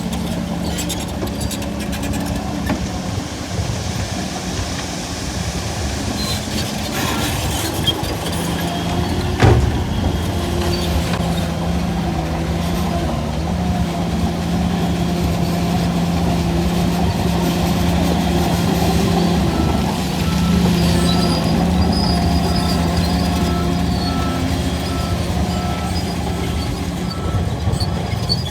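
A heavy bulldozer's diesel engine running steadily, with one sharp knock about nine and a half seconds in. Near the end, a run of short, evenly spaced reversing beeps.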